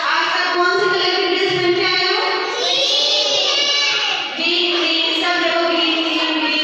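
A child singing a song in long held notes.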